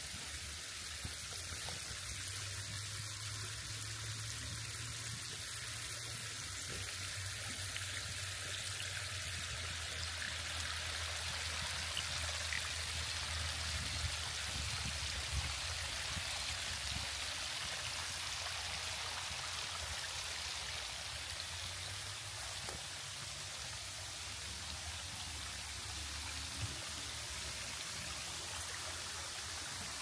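Steady rush of running water from a stream or small waterfall in a rainforest gully, getting a little louder and brighter partway through, with a low steady hum underneath.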